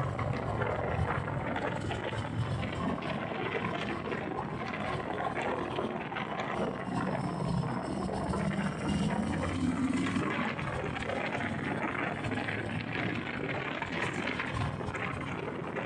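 Harley-Davidson Sport Glide's Milwaukee-Eight 107 V-twin running under way, its pitch rising and falling with the throttle, mixed with heavy wind rush on the microphone.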